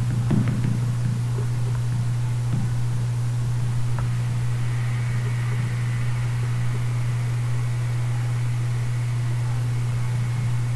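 Steady low hum with background hiss, a faint high-pitched tone joining about halfway through and a single light click around four seconds in.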